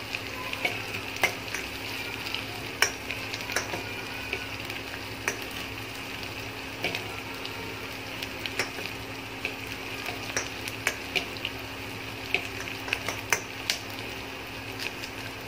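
Sliced shallots and curry leaves sizzling as they sauté in oil in a stainless steel pot, stirred with a steel spoon that clicks and scrapes against the pot many times. A steady low hum runs underneath.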